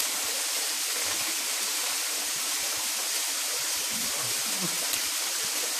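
Hill-stream water running steadily over rocks.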